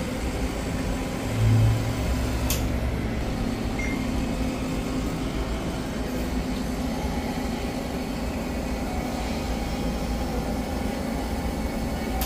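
Electric pedestal fan running steadily together with the humming pump of a misting machine, which is cycling 10 seconds spraying, 10 seconds paused. A louder hum swells briefly about a second and a half in, and a single click comes about a second later.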